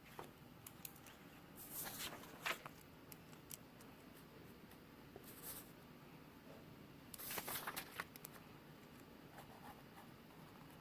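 Quiet room tone with scattered small clicks and two brief rustles, about two seconds in and again near the middle.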